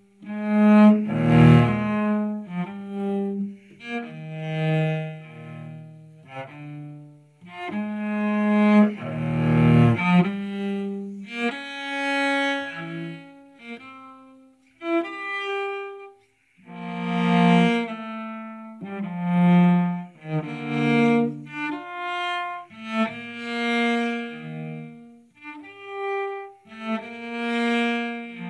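Solo cello played with the bow: slow, sustained notes in phrases that swell and fade, with a brief pause a little past halfway.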